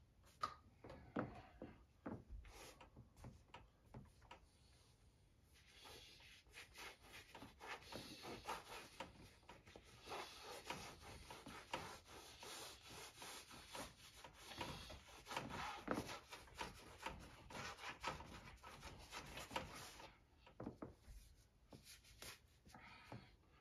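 Gloved hand rubbing acrylic paint across a stretched canvas, a faint scrubbing in quick repeated strokes that starts a few seconds in and stops near the end. Scattered light knocks come before it.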